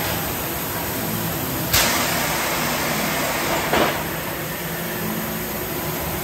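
Industrial thermoforming machine running through a forming cycle, with a steady mechanical noise and two sudden loud bursts about two seconds apart.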